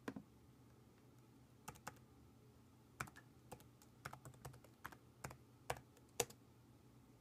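Typing on a Mac's keyboard, entering a password: about a dozen faint, unevenly spaced keystrokes, with a short quick run of them in the middle.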